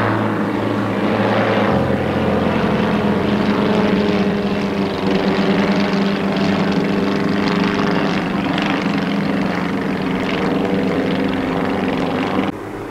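Propeller engines of a formation of four light single-engine aircraft flying overhead, a continuous drone of several engines whose pitches shift slightly against each other. It drops off abruptly near the end.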